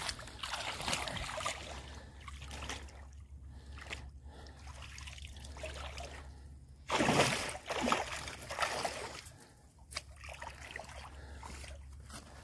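Shallow pond water sloshing and splashing around a person's waders and hands as they kneel, stand and step in it at a muddy bank, with a louder splash about seven seconds in.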